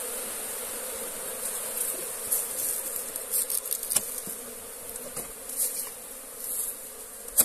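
Honeybees buzzing in a steady hum over the exposed honeycomb of an opened log hive, with a few light knocks and a sharp click near the end.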